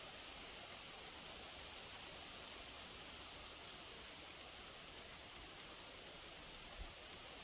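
Faint, steady hiss of wind moving through trees, with a few small ticks and a soft low bump near the end.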